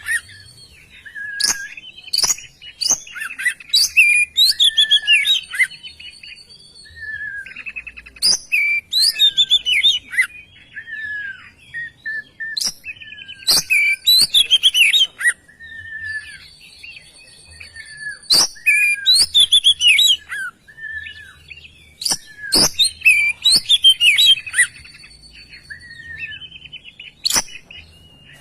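Oriental magpie-robin singing loudly in repeated bouts: fast, varied phrases of clear whistles, trills and sharp clicks, each bout a few seconds long with short pauses between.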